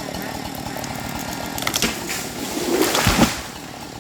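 Husqvarna 372 XP two-stroke chainsaw running steadily as a dead ash tree comes down: a few sharp cracks just under two seconds in, then a rising rush of branches ending in a heavy thud as the trunk hits the ground a little after three seconds.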